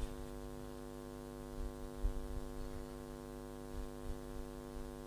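Steady electrical mains hum from the microphone and sound system, an unchanging chord of even tones, with a few faint low knocks.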